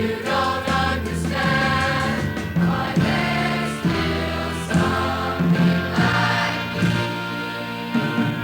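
Choir singing a gospel song with instrumental accompaniment.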